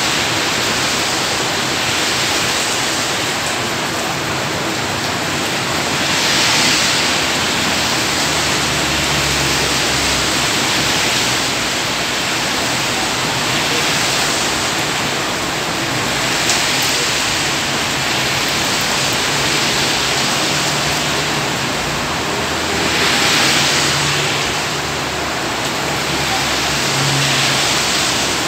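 Heavy rain falling steadily, a dense hiss that swells louder every several seconds.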